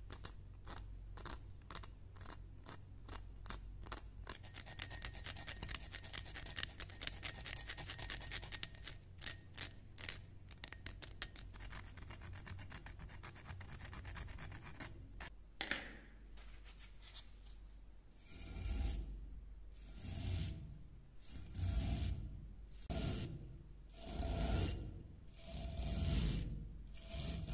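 A thin metal pick scratching and picking at pitted, flaking rust on a steel knife blade, a dense run of small ticks and scrapes. About two-thirds of the way through it gives way to a small wire brush scrubbing the rusty blade in regular back-and-forth strokes, about one a second, louder than the picking.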